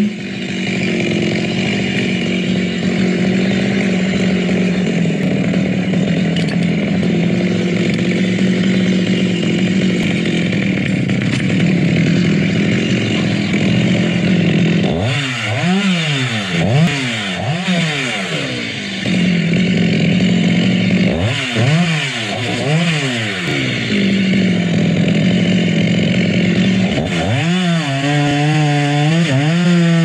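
Two-stroke chainsaw running hard as it cuts into coconut palm trunks, its engine note steady for long stretches, with quick rising-and-falling revs of the throttle about halfway through, again a few seconds later, and near the end.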